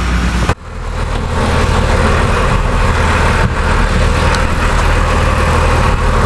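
A fishing boat's engine running steadily, a low hum under the noise of wind and water. The sound drops out briefly about half a second in and then picks up again.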